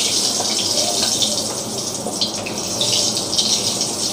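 Dried red chillies sizzling in hot oil in a wok: a steady high hiss with scattered small crackles.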